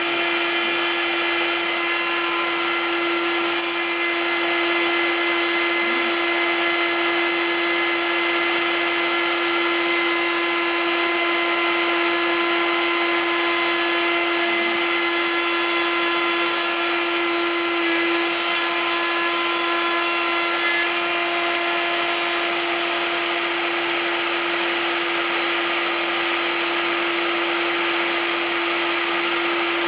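Spindle of a home-built CNC mill running at a steady high whine while it cuts plywood, with a rushing cutting noise over it.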